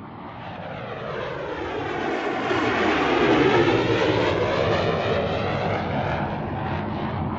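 Jet aircraft flying past: the engine noise swells to its loudest about three to four seconds in, with a sweeping phasing sound as it passes, then fades away.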